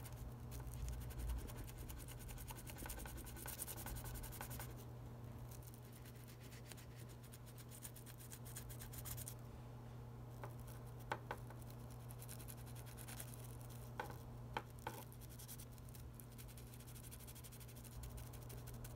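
Toothbrush bristles scrubbing inside an iPhone 6's charging port wet with alcohol, a faint fast scratching that stops for a few seconds in the first half, with a few sharper clicks past the middle. The port is being cleaned of dust and grease that stopped the phone charging. A steady low hum runs underneath.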